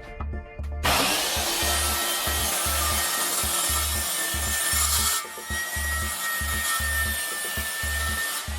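A power saw cuts through metal with a loud, steady hiss and a faint whine. It starts suddenly about a second in, and its high hiss eases about five seconds in. A music track's bass beat pulses underneath.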